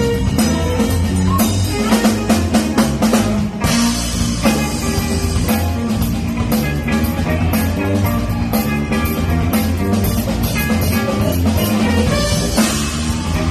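A band playing an instrumental funk tune, with drum kit and guitar to the fore over a moving low bass line.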